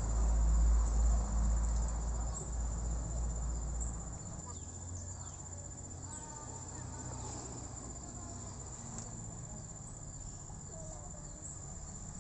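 Insects, likely crickets, chirring as one steady high-pitched tone. Under it a low engine rumble fades out about four seconds in. A few faint short chirps follow.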